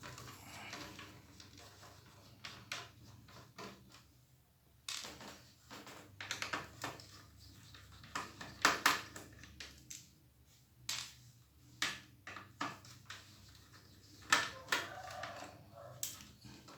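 Irregular clicks, taps and light knocks from hands working inside an opened Asus X541C laptop, handling its plastic case and internal parts while the motherboard is being freed.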